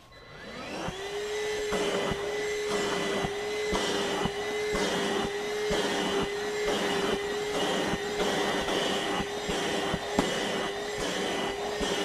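RYOBI PCL733 1-gallon 18V cordless wet/dry vac spinning up, then running steadily with a whine while its nozzle is worked back and forth over a carpeted floor mat. The suction noise pulses in a regular rhythm, with occasional clicks.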